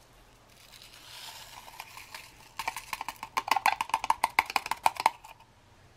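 Freeze-dried instant coffee crystals poured from a foil packet into a glass tumbler. A soft rustling pour gives way, about two and a half seconds in, to a quick patter of crystals ticking against the glass, which rings faintly. It stops about five seconds in.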